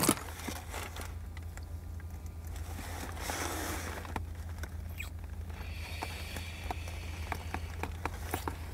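A couple kissing in a car: soft lip smacks, small clicks and clothing rustling, with a brief rustle about three seconds in, over a steady low hum.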